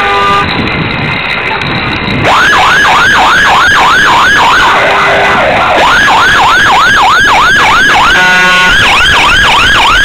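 A vehicle horn sounds briefly at the start. About two seconds in, an emergency-vehicle siren starts on a fast yelp, rising and falling about three to four times a second. The siren stops for about a second near the middle and then resumes, and a horn blasts briefly about eight seconds in.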